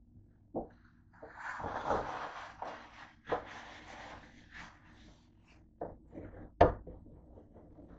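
Paper towel rubbed back and forth over the ridged plates of a George Foreman grill, a scratchy rubbing for a few seconds, followed by several sharp knocks, the loudest late on.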